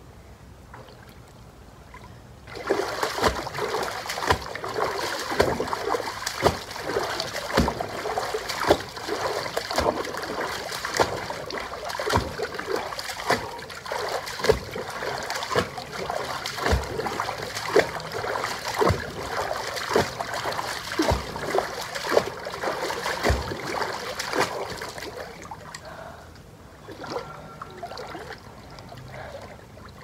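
Water splashing and sloshing in a shallow inflatable pool as feet stride and stamp through knee-deep water, in a quick uneven rhythm of splashes. It starts about two seconds in and dies down near the end.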